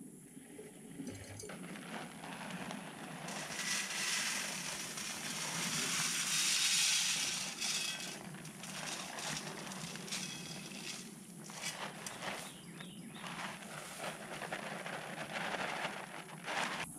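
Feed being poured from a plastic bag into a hanging barrel feeder: a rustling hiss with crinkling of the bag, loudest a few seconds in, then scattered small clicks and rattles.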